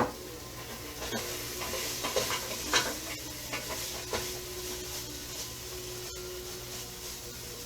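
Chicken, onion, tomato, cilantro and garlic sizzling in ghee in a pan, with a utensil stirring and scraping against the pan in short knocks over the first few seconds. After that a steady, quieter sizzle carries on.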